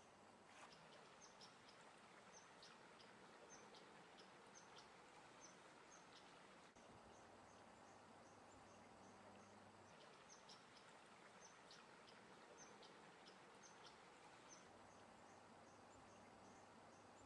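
Faint outdoor nature ambience of insects and birds: an evenly spaced high chirping, like crickets, broken twice by spells of quick, falling bird chirps, over a soft hiss.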